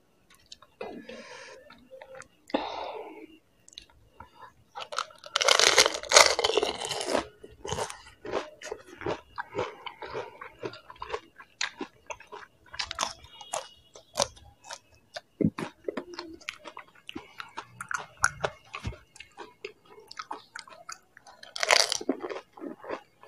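Close-up crunching and chewing of crisp panipuri (golgappa) shells filled with spicy water, a steady run of crackles and wet mouth clicks, with two louder, longer crunches about a quarter of the way in and near the end.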